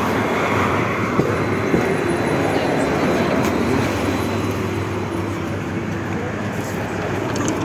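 A 71-154 (LVS-2009) articulated tram pulling in along a platform: steady rolling noise of its wheels on the rails with a hum from the drive, which fades near the end as it slows. Two light clicks come in the first two seconds.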